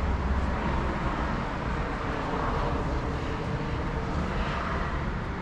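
Steady road traffic noise, a continuous low rumble of passing vehicles with no distinct events.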